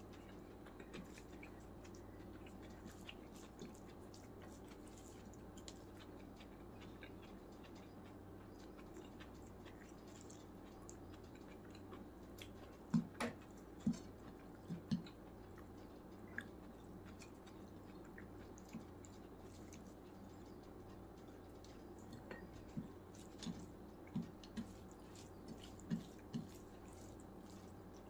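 Eating chicken biryani by hand: fingers mixing and squishing rice on the plate and chewing, with scattered faint clicks. A few short sharp knocks come in two clusters, around the middle and near the end, over a faint steady hum.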